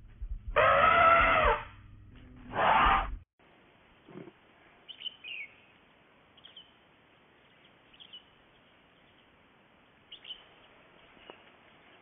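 Two loud pitched animal calls, the first about a second long and the second shorter, ending abruptly a little after three seconds in. Then a faint outdoor background with a few short, high bird chirps every second or two.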